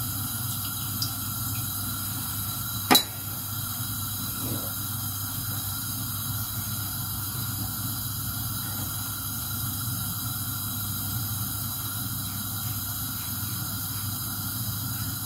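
Steady low hiss with a faint hum, broken once by a short sharp click about three seconds in.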